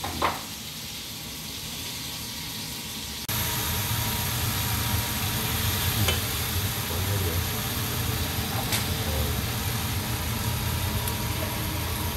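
Meat pieces and garlic sizzling in a frying pan as they are stir-fried with chopsticks, over a steady low rumble. The sizzling cuts in abruptly about three seconds in, after a short knock and quiet room sound.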